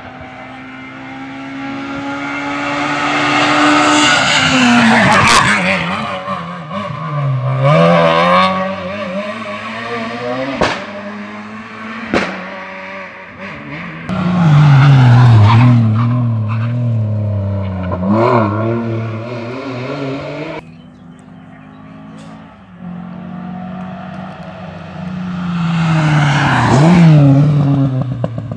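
Rally cars passing one after another at speed, engines revving hard, their pitch climbing and dropping through gear changes, with a few sharp cracks between the passes.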